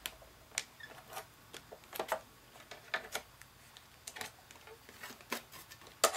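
Scattered light clicks and taps at irregular spacing, made by hands pressing small pieces of tape onto a thin metal cutting die and handling the plastic cutting plates of a die-cutting machine.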